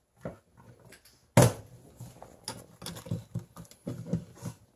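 Plastic parts clicking and knocking as a clip-on phone holder for a game controller is handled and fitted together, with a sharper knock about a second and a half in.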